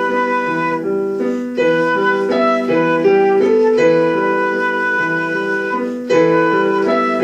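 Instrumental music: a flute playing a melody over piano accompaniment, held notes changing every half second or so.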